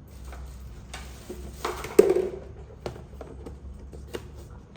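Green beans and tissue being handled and laid into a vegetable storage box: rustling with a few light knocks, the loudest about two seconds in.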